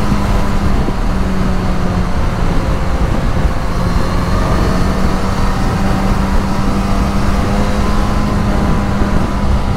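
Suzuki GSX-S1000 inline-four motorcycle engine running at a steady cruising speed, one even tone throughout, with a heavy rush of wind and road noise over the microphone.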